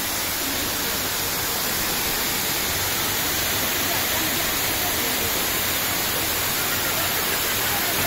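New Athos waterfall: a steady, even rush of falling water.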